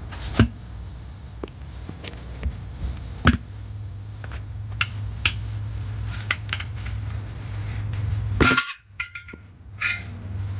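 Pry tool clinking and knocking against a steel wheel rim while a tire bead is worked back onto the rim by hand: scattered sharp metallic clicks, the loudest about three seconds in and a louder cluster near the end, over a steady low hum.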